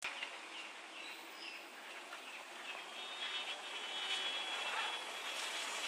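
Outdoor street ambience: a steady wash of distant traffic with short bird chirps through the first half, and a thin high steady tone in the middle.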